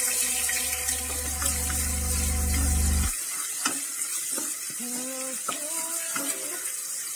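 Ginger-garlic paste sizzling in hot oil in a pot, stirred with a spatula that scrapes against the pot a few times. A low steady hum runs under it and cuts off about three seconds in.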